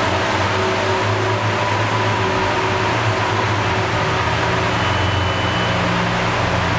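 Lamborghini Aventador LP700-4's 6.5-litre V12 idling steadily as the car rolls slowly and pulls up, with no revving.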